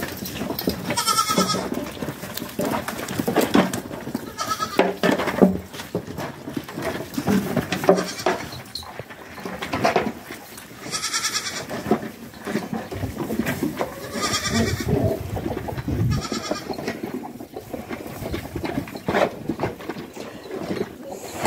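Goats bleating in short, high, wavering calls, about four times, over steady rustling and crunching as they pull hay from a heaped wheelbarrow.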